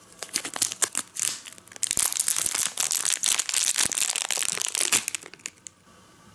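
Thin clear plastic bag crinkling as it is opened and a foam bread-loaf squishy is pulled out of it. Scattered crackles at first, dense and continuous from about two seconds in, stopping shortly before the end.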